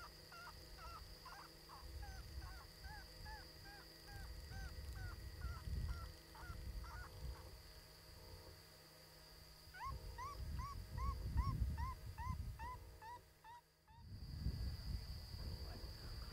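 ICOtec electronic predator caller playing a string of short, squealing distress cries, about two to three a second. It pauses around seven seconds in, then resumes with a quicker, higher series that stops just before the end. Wind rumbles on the microphone throughout.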